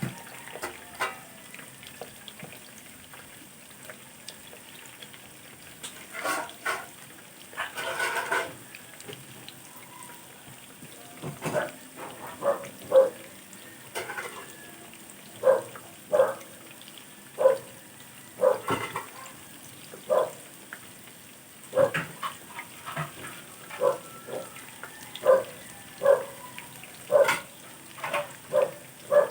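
A dog barking repeatedly, short sharp barks roughly once a second, starting about eleven seconds in, over a faint steady sizzle of frying.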